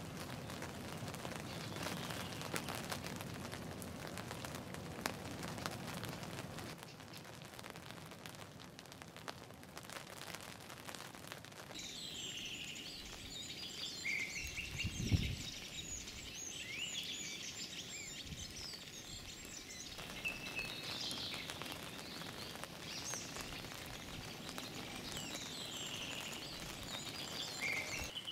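Small birds chirping and singing over a steady hiss of rain in a wet forest. There is a single low thump about halfway through.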